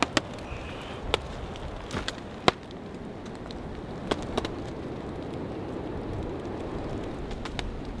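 Brittle ice cracking and clinking in sharp, separate snaps, about eight of them and mostly in the first half, the loudest about two and a half seconds in, over a steady low rush.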